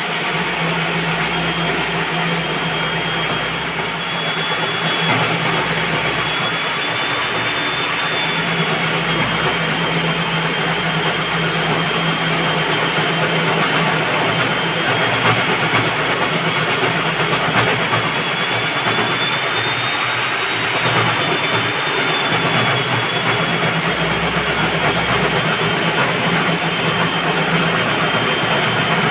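Electric diamond core drill running steadily while cutting a hole through a concrete slab: a loud grinding noise with a high motor whine that wavers slightly in pitch.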